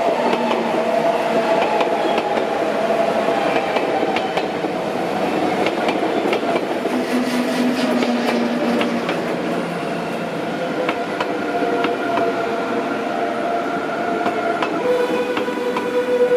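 An SBB RABDe 500 ICN tilting electric train pulls into the station. Its wheels click over the rail joints, and a whine slowly falls in pitch as the train slows. Near the end a steady, whistle-like tone starts.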